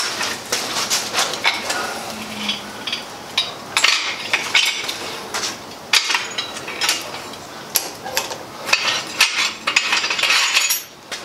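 Hand-operated compact bender and a 3/8-inch hot-rolled steel rod clanking and clinking as the rod is bent around the die and handled. Irregular sharp metal knocks, with quicker clusters around the middle and near the end.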